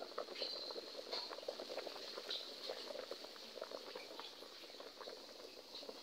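Water boiling in a pot: quiet, irregular bubbling made of many small pops and crackles.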